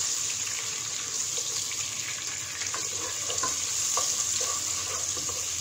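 Chopped onion and tomato sizzling in hot oil in a pot, a steady hiss, while a wooden spatula stirs them with faint scraping ticks against the pot.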